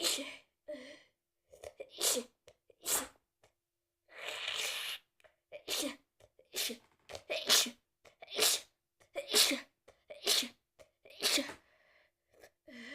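A woman with a head cold sneezing again and again: about ten sharp sneezes, coming about once a second in the second half. About four seconds in there is a longer, noisier burst.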